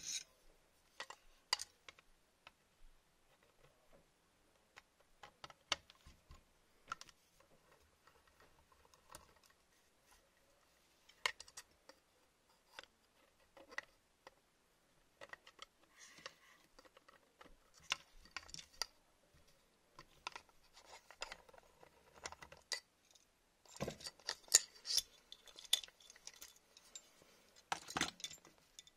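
Scattered clicks, taps and light knocks of an airsoft gearbox and its plastic receiver being handled on a work mat, metal and plastic parts knocking together, with a denser run of clicks near the end.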